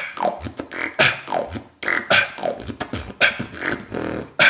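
Beatboxed beat built around the cough snare, a sudden push of air from the throat with a hissing tail, landing about once a second. Between the snares come low kick-drum thumps, clicks and short vocal tones that fall in pitch.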